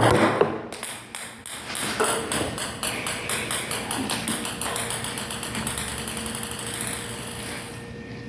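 Ping pong ball bouncing on a hard surface, a run of light pings that come quicker and quicker as the ball settles, after a few louder knocks at the start.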